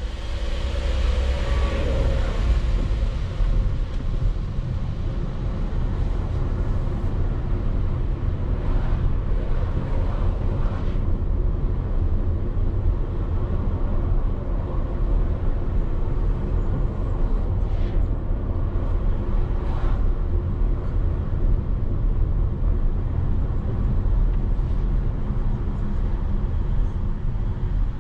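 Steady low rumble of a road vehicle on the move, recorded on board.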